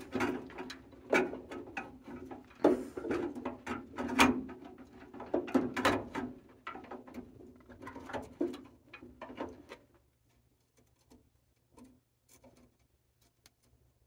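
Clicking and rustling of wires, plastic connectors and a copper water line being pushed and pulled by hand inside the open cabinet of a Rheem tankless water heater. The sound is busy for about ten seconds, then dies away to a few faint clicks.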